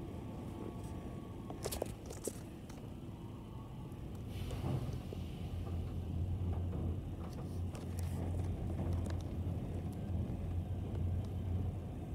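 Ryko automatic car wash machinery heard from inside the car: the rotating cloth side brush and its drive run with a steady low hum that gets clearly louder about four and a half seconds in as the brush reaches the car. A few sharp knocks come about two seconds in.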